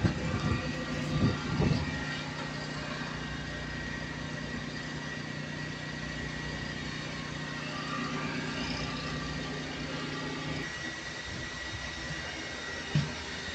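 Steady machine hum with a low drone and a faint high whine, the low drone dropping out about eleven seconds in; a few light knocks early on and one sharp knock near the end.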